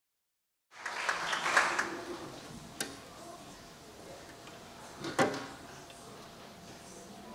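Room sound of an audience waiting in an auditorium: low murmured chatter with two sharp knocks, about three and five seconds in.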